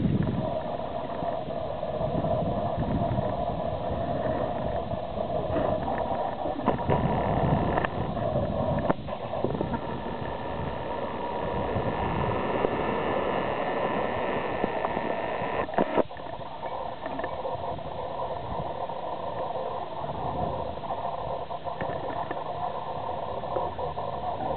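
Outdoor ambience with wind buffeting the microphone, under a steady faint background hum, and a few sharp clicks from handling the camera, the loudest about 16 seconds in.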